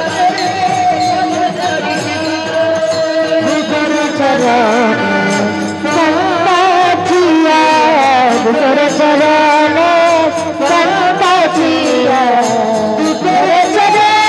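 Devotional kirtan music: a voice sings a long, drawn-out melodic line that slides up and down over steady held accompanying tones, with sharp clicks keeping a regular beat.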